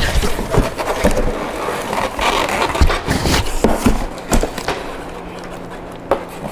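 A cardboard shipping box being opened and rummaged: flaps and packing scraping and rustling, with repeated knocks and thumps as the heavy packed contents are shifted inside.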